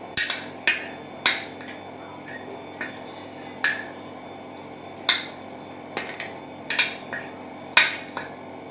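Spoon clinking against a small glass bowl while mixing chopped mango with chili powder, salt and oil for pickle: about ten sharp clinks at an uneven pace.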